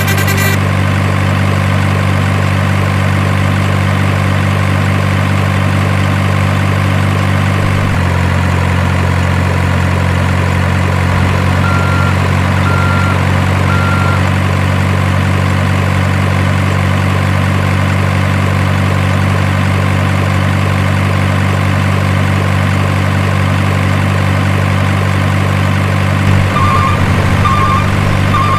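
Simulated heavy diesel truck engine idling, a steady low hum that shifts slightly in pitch about eight seconds in. Three short beeps come near the middle, and a run of regular, evenly spaced beeps, like reversing beeps, starts near the end.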